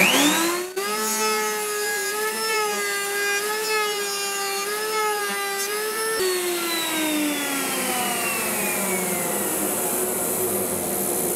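A table-mounted router spins up with a rising whine, then runs with a slightly wavering pitch as a walnut board is fed past its ogee bit, shaping a moulded edge. About six seconds in, the whine slowly drops in pitch while a steady dust-collector hum carries on.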